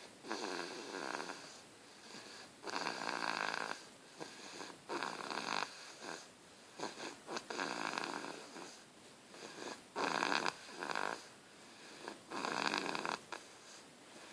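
A baby snoring in its sleep: a rasping snore on each breath, about six in a row, one every two seconds or so.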